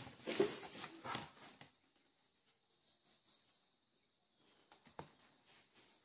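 Paper on a clipboard being shifted and handled for about the first second and a half, then quiet, with a faint high chirp about three seconds in and a single sharp click near five seconds as a pen is picked up.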